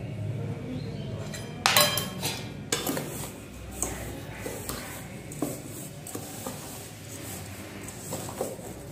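A metal ladle clanks against the metal pan with a ringing strike a little under two seconds in, and again about a second later. Then a spoon scrapes and taps around a stainless steel bowl as hot jaggery syrup is mixed into ground puffed rice and rice flour.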